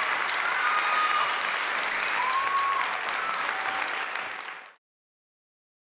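Audience applauding, cut off abruptly near the end.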